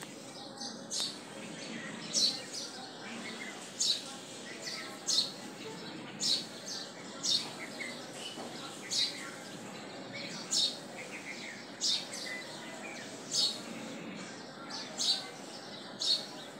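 A bird chirping short, high calls over and over, roughly one a second, over a steady background hiss.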